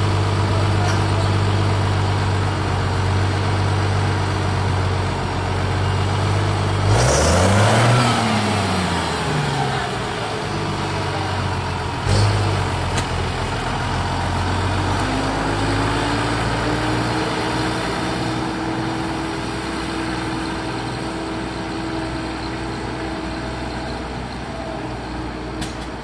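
International 955 tractor's diesel engine running steadily. About seven seconds in it revs up and drops back with a brief rush of noise, there is a sudden clunk about twelve seconds in, and from about fifteen seconds a higher tone rises slowly and holds over the running engine.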